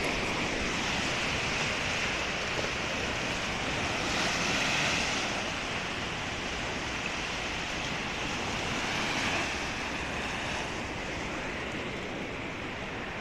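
Small lake waves breaking and washing up on a sandy shore: a steady rush of surf that swells a little about four seconds in.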